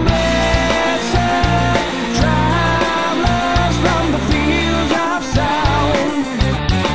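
Rock band playing a song: drums and cymbals, bass and electric guitar, with a male voice singing.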